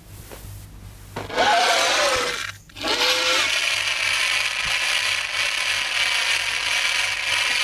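Whirring, grinding sound effect of a film soundtrack. A short burst with a falling tone comes about a second in and breaks off, then a long steady whirring follows.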